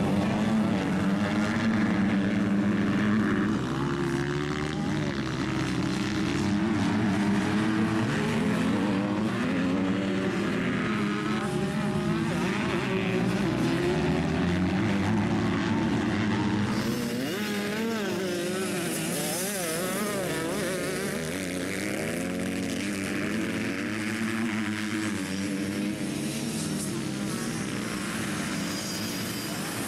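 Several 85cc two-stroke motocross bikes racing on a dirt track, their engines revving up and dropping back again and again through the corners and straights. The engine sound changes about 17 seconds in.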